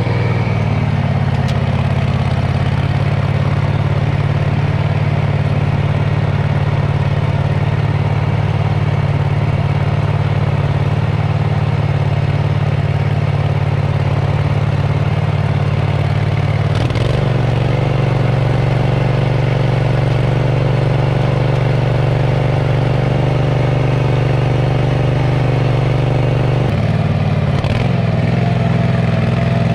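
22 hp Predator V-twin surface-drive mud motor running under way, pushing a jon boat across a lake at a steady throttle. Its note changes about halfway through and changes back near the end.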